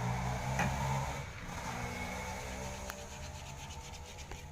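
Low, steady mechanical drone with a couple of faint clicks.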